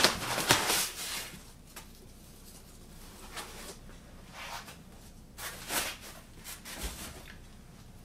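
Plastic wrapping and foam packing being pulled out of a cardboard box, rustling and crinkling in irregular short bursts, loudest in the first second and again around six seconds in.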